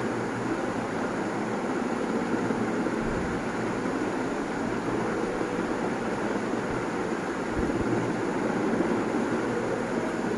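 Steady background room noise, an even rushing hum with no voices, broken by a couple of faint low thumps.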